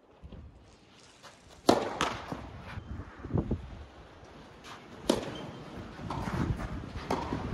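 Tennis rally: racket strings striking the ball back and forth, a sharp crack about every one and a half to two seconds. The first and loudest hit comes about one and a half seconds in, with players' shoes scuffing on the sandy court between shots.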